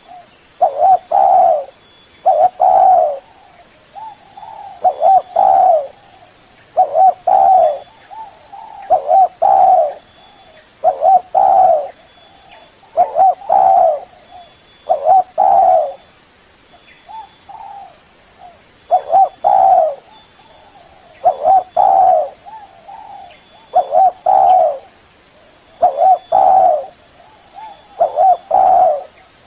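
Spotted dove cooing its song over and over, phrases of two or three low coos repeating about every two seconds. It is the male's call that challenges and draws rival males.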